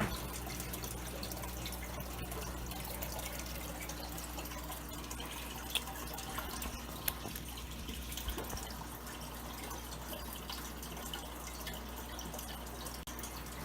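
Water trickling and dripping steadily from a drilled PVC spray bar into an aquarium, fed by a small submersible pump, with a steady low hum underneath and a few small splashes.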